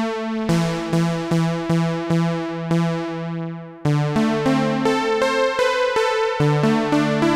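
Xfer Serum software synth playing an analog-style patch: chords repeated about two or three times a second, each starting bright and fading as its low-pass filter closes, with the chord changing a few times. The patch is built for an analog feel, with an MG Low 24 filter swept by an envelope, chaos modulation on the tuning and ARP pink noise mixed in.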